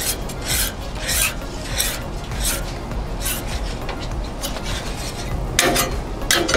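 Metal spatula scraping across the oiled steel top of a Blackstone griddle in repeated strokes, about one or two a second, spreading the oil before meat goes down. The loudest pair of strokes comes near the end.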